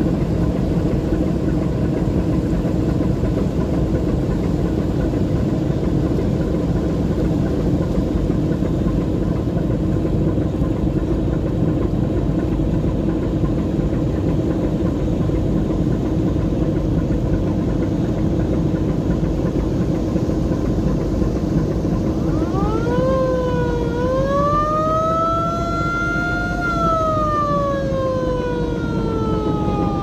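Boat engine running steadily, heard from on board. About two-thirds of the way in, a siren-like wail starts, rises, dips, rises again and then slides slowly down in pitch.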